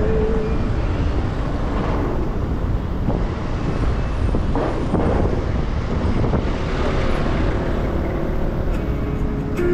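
Motorcycle ride at road speed: steady wind rush over the microphone with the engine running underneath, and passing traffic.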